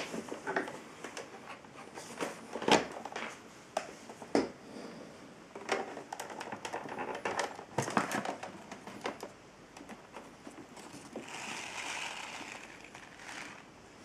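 Hard plastic clicks and knocks from a Lux Intelligence canister vacuum cleaner being handled with its motor off, as the hose is unlatched and the dust compartment lid is opened. A soft rustle follows near the end.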